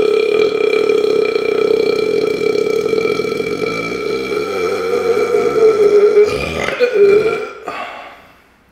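A man's single long burp, driven by the gas from 1.25 litres of chugged soda water, held at a steady pitch, wavering near the end and dying away about seven and a half seconds in.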